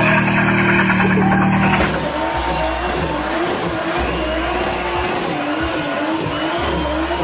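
A car's engine held at high, steady revs through a tyre-smoking burnout. About two seconds in, this gives way to a Toyota Supra's burnout: tyres squealing in a wavering tone over the revving engine.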